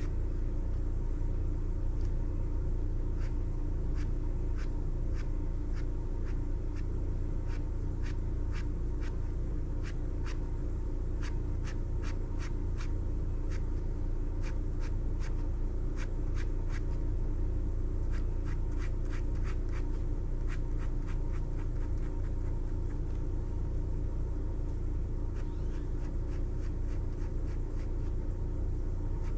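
Pen scratching on sketchbook paper in quick, short hatching strokes. The strokes are dense in the middle and thin out after about twenty seconds, over a steady low hum.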